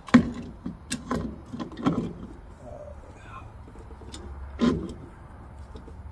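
A handful of clunks and knocks as a new brake master cylinder is set onto the brake booster's mounting studs. The loudest comes right at the start, another cluster follows over the next two seconds, and one more comes about four and a half seconds in.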